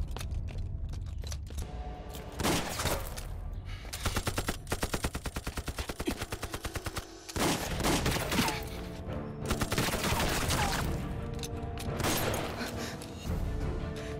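Film gunfire: several single shots, then a rapid burst of automatic fire lasting about three seconds in the middle, over dramatic background music.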